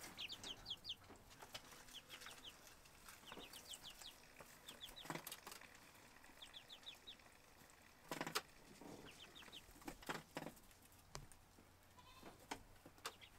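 Young chicks peeping faintly in short runs of quick high peeps, repeated every second or few seconds, with a few scattered soft knocks, the loudest about eight seconds in.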